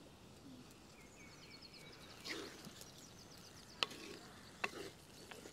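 Wooden spoon stirring a thick mussel masala in a clay pot, faint, with two sharp knocks of the spoon against the pot in the second half.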